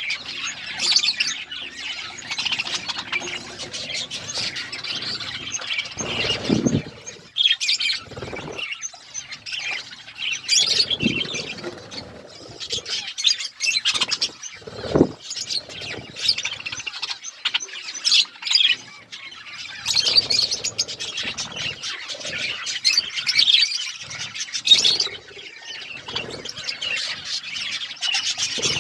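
A group of budgerigars chirping and chattering continuously, with a few brief soft thuds mixed in.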